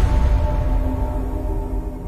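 Dark, ominous soundtrack music: held notes over a deep low drone.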